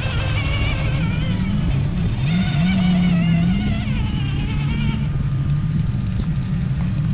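Whine of a Traxxas TRX-4 RC crawler's electric motor and geared drivetrain as it crawls over rocks. The pitch rises and falls with the throttle.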